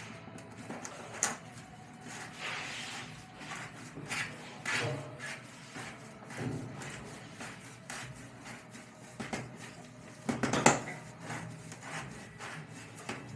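Scattered knocks, clicks and rubbing from hand work with wood and building materials in a small room, with one louder knock about three-quarters of the way through.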